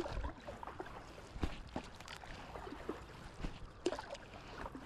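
Water splashing and dripping around a stand-up paddleboard: a scatter of small irregular drips and plinks, with a slightly louder splash just before four seconds in.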